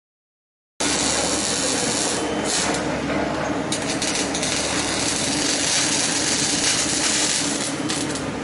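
Robotic arc welding of steel scaffolding planks: a steady, dense crackle and hiss from the welding arc and spatter, with a low machine hum beneath. It starts abruptly just under a second in.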